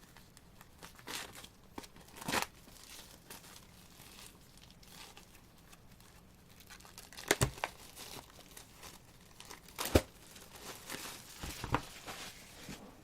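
Plastic shrink wrap being torn and crinkled off a sealed CD album, with a few sharp clicks as the package is handled, the loudest about seven and ten seconds in.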